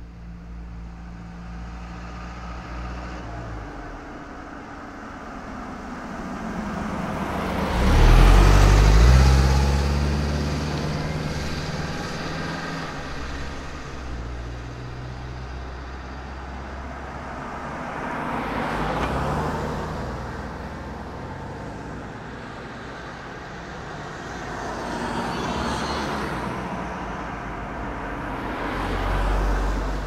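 Cars driving past one after another, four passes in all. The loudest is about eight seconds in, its engine note dropping in pitch as it goes by; three fainter passes follow.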